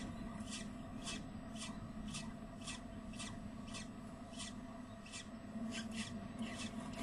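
A falcon shuffling on the nest-box gravel: short scratchy scraping strokes, about two a second, over a steady low electrical hum from the webcam.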